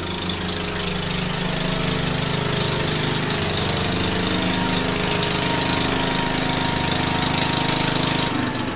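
Wheel Horse 10 garden tractor's engine running steadily as the tractor drives forward, the engine sound cutting off near the end.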